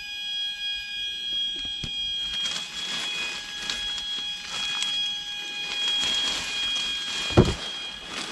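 Dry leaf litter crunching and foliage rustling as someone pushes through forest undergrowth, a dense crackle starting about two seconds in, with one loud low thump near the end.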